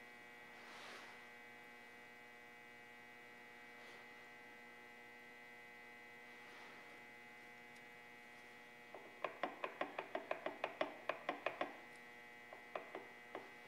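Steady faint electrical hum, then about nine seconds in a quick even run of light metallic clicks, some six a second for about three seconds, with a few more near the end: the spur gears of a bandsaw transmission being turned by hand, their teeth clicking as they mesh.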